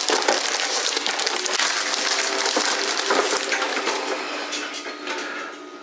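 Plastic mailer bag being torn open and crumpled by hand: a dense, crackling rustle that eases off near the end.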